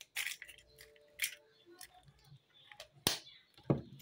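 Eggshells cracking as hen's eggs are broken open by hand over a bowl: four short, sharp cracks, the loudest just after three seconds in.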